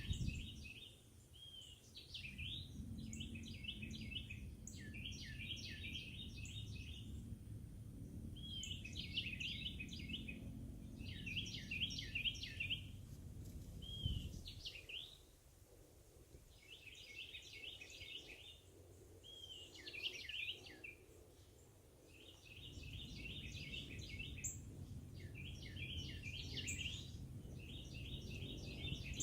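Songbirds singing, repeating short phrases of quick chirping notes every couple of seconds, over a low rumble that fades out for a few seconds midway and then returns.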